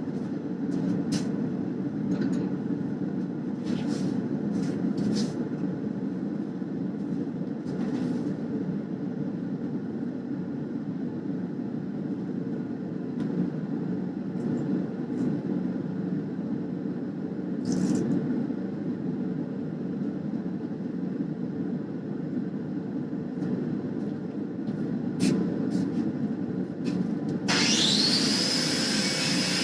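A forge runs with a steady low rumble, broken by a few light clicks and knocks. Near the end an angle grinder with a stone cup wheel spins up to a steady high whine, ready to grind the cut billet clean before folding.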